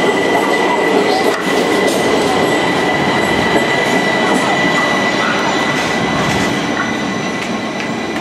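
Washington Metro subway train pulling out of an underground station, its cars running past and the rear car moving off down the track, with a steady high whine over the rumble. The noise eases slightly near the end.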